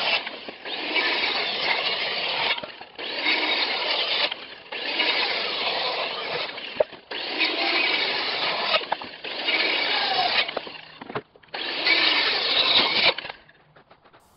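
Handheld circular saw cutting through the overhanging ends of timber rafters, making the plumb cuts: about seven short cuts of a second or two each, with brief gaps between them, ending about a second before the end.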